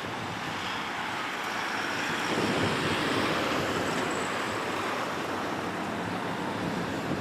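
Road traffic passing, tyre and engine noise swelling to a peak two to three seconds in and easing off, with wind buffeting the microphone.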